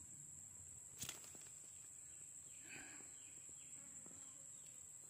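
Near silence: faint outdoor background with a steady high insect drone, one sharp click about a second in, and a few faint short chirps in the middle.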